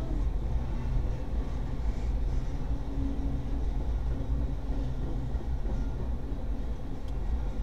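Freight train of coal hopper cars rolling past at a steady pace: a continuous low rumble of steel wheels on the rails.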